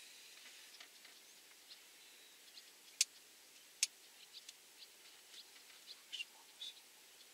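Scattered short bird chirps over faint background hiss, with two sharper, louder calls about three seconds and nearly four seconds in.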